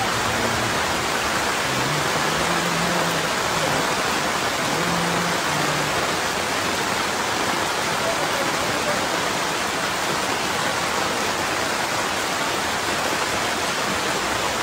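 Steady, even rushing hiss of rain and flowing floodwater.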